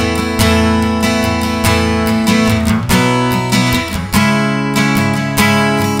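Strinberg SD201HC TOS cutaway acoustic guitar strummed in a simple chord passage, the chords struck every half second or so and left to ring, with a change of chord about four seconds in. The sound is picked up by a condenser microphone blended with the guitar's own SE-60 preamp pickup.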